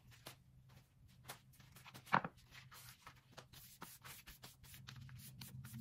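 Banana leaf crackling and rustling in short, irregular scrapes as it is spread flat on a wooden cutting board and wiped with a cloth, with one sharper crackle about two seconds in.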